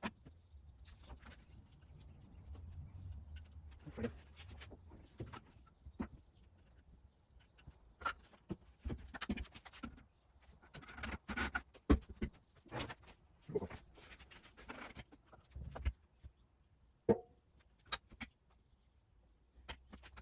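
Irregular clicks, clinks and knocks of metal fork parts and tools being handled during a motorcycle front fork teardown, with a low rumble in the first few seconds.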